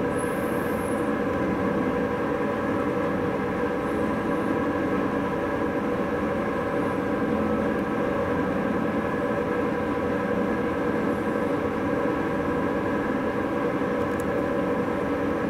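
A steady machine hum with several held tones over a low rumble, unchanging throughout, with a few faint high squeaks now and then.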